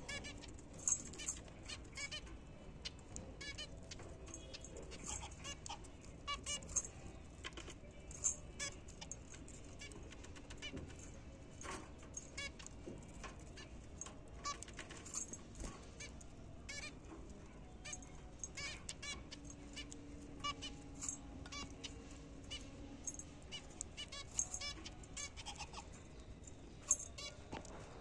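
Caged zebra finches calling, a busy scatter of short, sharp nasal beeps, with light clicks of beaks pecking seed from a metal feed bowl.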